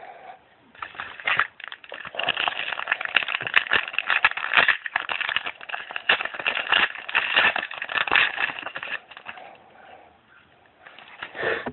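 Crinkling and rustling of trading-card packaging and cards being handled, a dense run of small crackles and clicks that goes on for several seconds and then dies down near the end.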